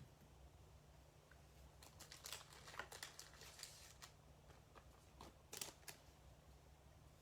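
Faint rustling and light scrapes of trading cards and pack wrappers being handled, scattered through the middle of the stretch, with the loudest a little past the middle, over a steady low hum.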